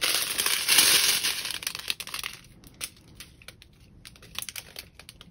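A strip of small plastic bags of resin diamond-painting drills crinkling as it is handled: a loud stretch of crackling for about two seconds, then scattered quieter crinkles and ticks.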